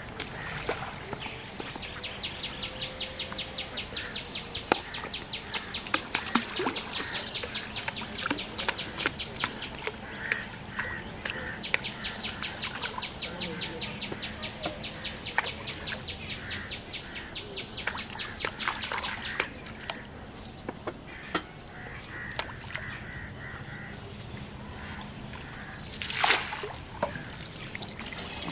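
Two runs of rapid, evenly repeated high chirps, each about seven seconds long, from a bird or insect. Near the end, water splashes loudly as a hooked fish thrashes at the pond's edge.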